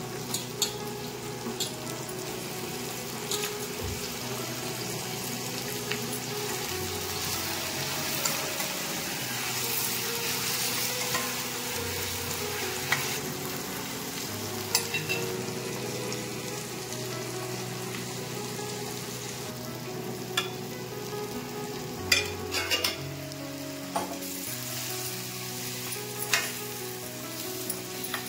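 Brinjal pieces frying and sizzling in oil in a stainless-steel kadai, stirred with a metal slotted spoon that clinks and scrapes against the pan a few times, more often near the end. Soft background music underneath.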